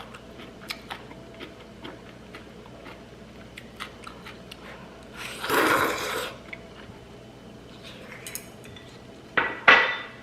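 Cutlery and dishes clinking lightly with many small clicks, a longer noisy sound about halfway through, and two louder knocks near the end.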